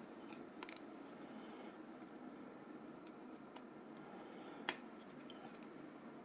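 Faint clicks and taps of small plastic phone parts being handled during disassembly, with one sharper click about two thirds of the way in.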